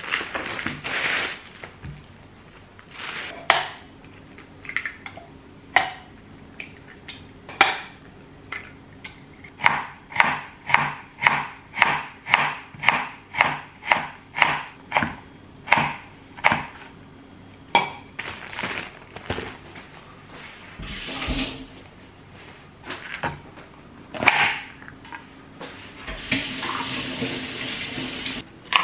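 Chef's knife julienning a carrot on a plastic cutting board, a run of sharp, even strokes at about two a second through the middle, with scattered single cuts around it. Plastic produce bags crinkle at the start, and a kitchen tap runs near the end.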